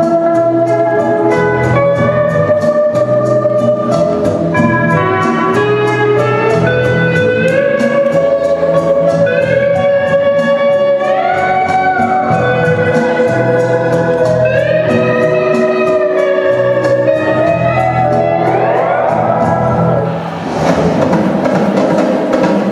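Hawaiian-style hula music, with a sliding steel guitar swooping up into held notes over a steady, about two-a-second plucked beat. About 20 s in the music dips briefly and changes to a fuller, noisier section.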